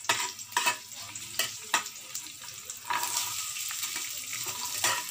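Sliced onions frying in hot oil in a pan, with a spatula scraping and knocking against the pan several times. About three seconds in the sizzle grows louder as green peas go into the oil.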